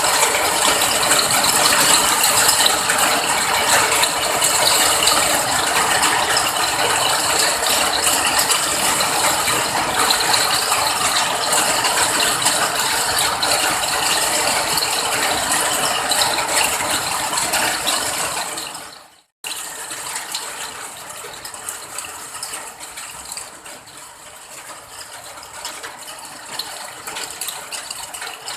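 Rain falling, a dense, steady patter of drops. It fades out a little past two-thirds of the way through, stops for a moment, then comes back quieter.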